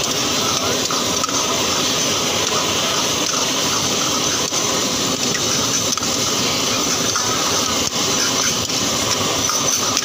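Prawn karahi sizzling and bubbling hard in an iron karahi wok over a high gas flame, a steady rushing hiss, with a ladle stirring and scraping it now and then.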